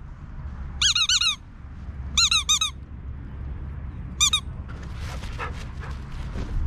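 Rubber squeaky toy squeezed in short runs: two or three quick squeaks about a second in, two or three more a little after two seconds, and a single one near four seconds.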